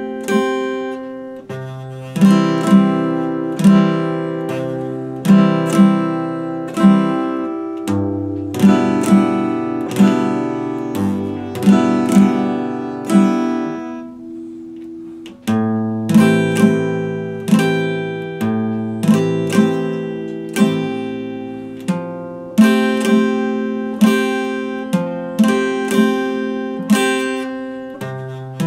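Acoustic guitar picked note by note over a moving bass line, in a steady repeating pattern. About halfway through, a chord is left to ring and fade before the picking starts again.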